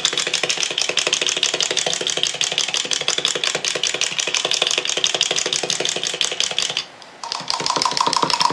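Clockwork wind-up toys walking on a tabletop, their spring motors running with a rapid, even clicking clatter. The clatter breaks off briefly about seven seconds in and then starts again.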